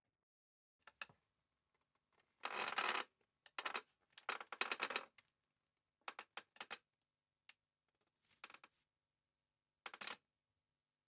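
Wooden chair being handled and shifted: a series of short creaks, scrapes and knocks of the wood, separated by silences, the longest a scrape about two and a half seconds in.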